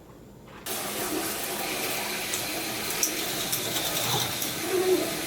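Plastic chain lift of a K'NEX Viper's Venom roller coaster running: a steady clattering rattle with scattered clicks that starts abruptly about a second in.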